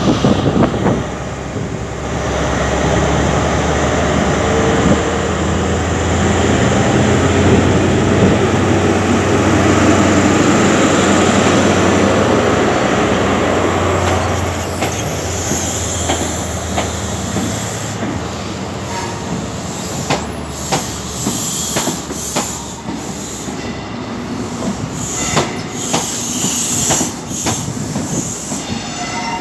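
HST departure: the leading Class 43 power car's diesel engine under power gives a loud, steady low drone for about the first half as it pulls away and passes. Then the Mark 3 coaches roll by, wheels clicking repeatedly over the track, with bouts of high wheel squeal.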